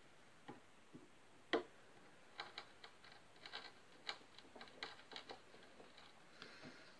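Small hand chisel nicking and paring away wood at the break of an acoustic guitar headstock: faint, irregular light clicks and taps, the sharpest about one and a half seconds in.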